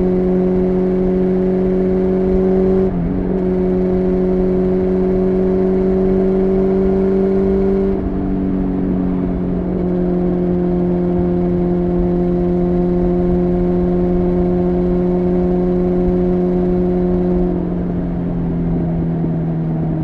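Honda CBR600F3's inline-four engine running steadily under way at a fairly high, even pitch. Its pitch dips briefly about three seconds in, then drops a step around eight seconds in and again near the end.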